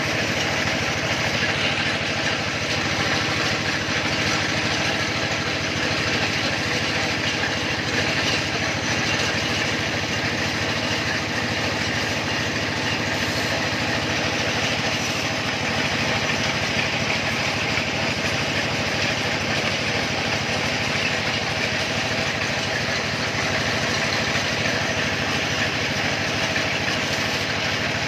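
Small engine running steadily at constant speed, driving a well-drilling machine.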